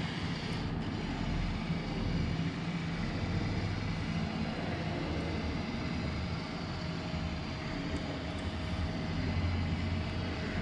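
Flatbed scanner (Epson Perfection V39) running a scan, its carriage motor making a steady low mechanical hum, with a faint steady higher whine joining about halfway through.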